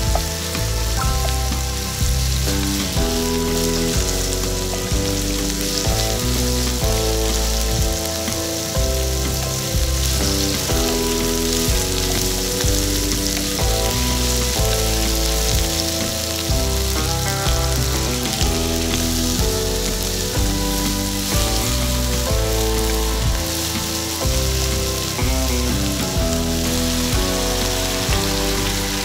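Water chestnut slices and asparagus sizzling in a hot frying pan as a wooden spatula stirs them, under background music whose chords change every second or two.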